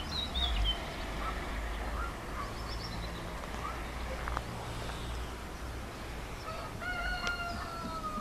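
A rooster crowing once near the end, one long call that slides slightly down in pitch. Small birds chirp briefly about the start.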